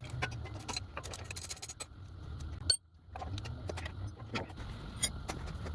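Metal hand tools and small motorcycle parts clinking and clattering in quick taps, then a sharp click a little over two and a half seconds in, a brief drop-out, and scattered clicks after, over a steady low hum.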